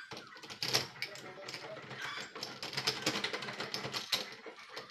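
Doorknob parts clicking and rattling as the knob assembly is pushed and worked into the latch in the door.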